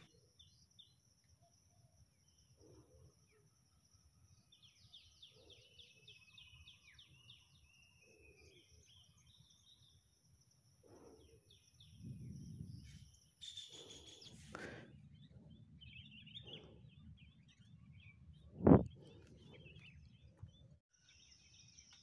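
Birds chirping and calling against a steady high-pitched drone, with one sharp, loud thump late on.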